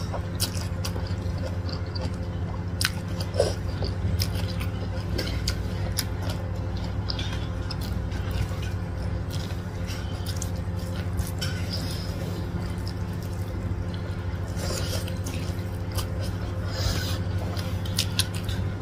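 Eating by hand: wet chewing and lip-smacking with scattered short sticky clicks from fingers in rice and flat rice noodles, over a steady low hum.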